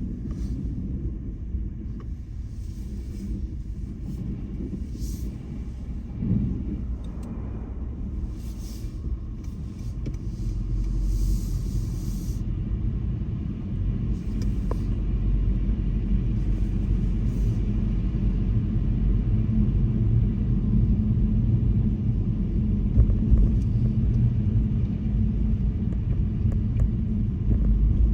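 Car driving, a steady low road and engine rumble that grows louder about ten seconds in, with brief high hissy swishes in the first half.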